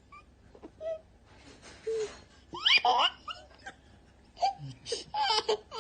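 A young child laughing hysterically in short bursts: a high, rising squeal of laughter about two and a half seconds in, and another run of laughter near the end.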